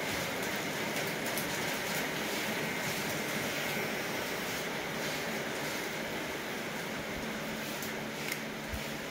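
Steady background hiss of room noise, even throughout, with a few faint clicks of plastic parts being handled.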